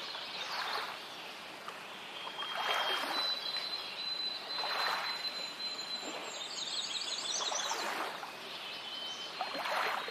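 Birds chirping and whistling, with quick trills and thin held notes, over water washing in soft, regular swells about every two seconds.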